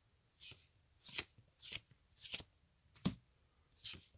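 Foil Magic: The Gathering cards slid one at a time across the stack as a booster pack is flipped through: six short papery swishes, roughly one every two-thirds of a second.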